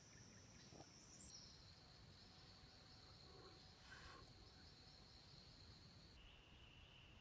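Faint outdoor ambience with a steady high-pitched insect trill, cricket-like, that drops abruptly to a lower pitch about a second in and again near the end.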